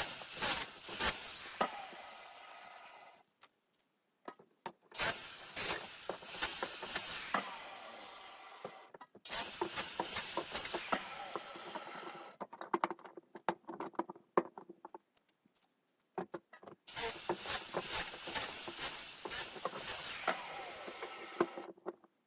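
Circular saw cutting small crooked trees into firewood lengths: four cuts of about three to five seconds each, with the blade whining down after the third.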